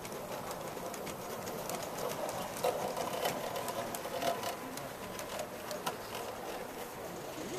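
Wheels of a passing gauge 1 model goods train of tank wagons, coal wagons and a brake van rattling along the track, with many sharp irregular clicks.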